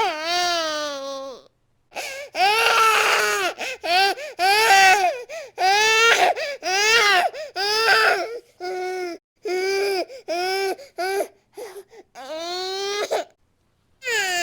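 Infant crying hard: a string of short wails that rise and fall in pitch, with quick breaths between them. Two brief total silences break the crying, about a second and a half in and near the end.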